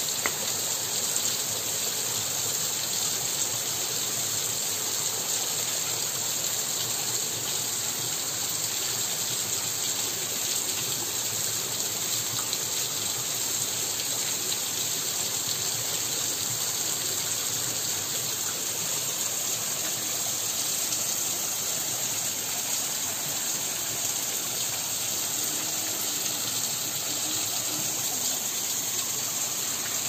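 Small waterfall splashing down over rocks: a steady rush of falling water.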